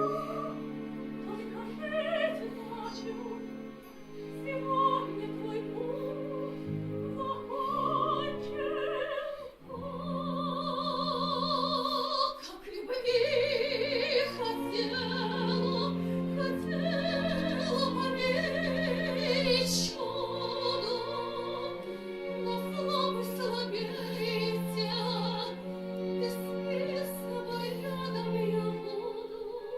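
Classical music: an operatic voice sings long held notes with vibrato over an orchestral accompaniment.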